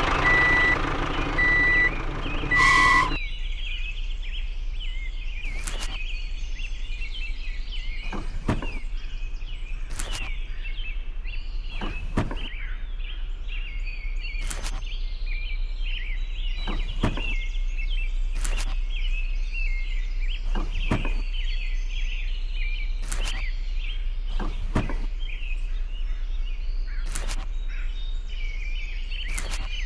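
A steady background of high chirping, like birds, with a sharp click every couple of seconds and a constant low hum. In the first three seconds a machine-like sound with a repeated high beep cuts off suddenly.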